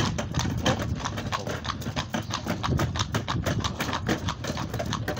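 Shod hooves of a young draught horse clip-clopping steadily on a snowy road as it pulls a cart, with the harness trace chains jingling and the cart wheels rumbling underneath.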